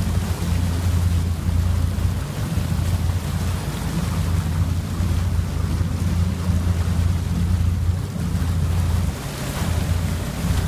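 Fishing boat's engine running steadily underway, a deep drone, mixed with the rush of the wake and wind on the microphone.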